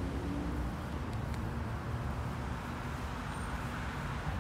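Street traffic: a steady low rumble of cars on the road.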